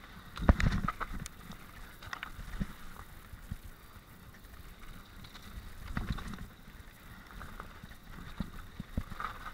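Mountain bike descending a rough dirt and rock trail: tyres rumbling over the ground and the bike rattling, with sharp knocks over bumps, heaviest about half a second in and again around six seconds.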